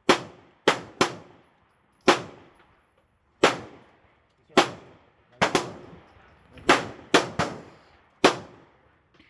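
Gunshots from other shooters on the range: about a dozen single shots at irregular intervals, a few coming close together, each with an echoing tail.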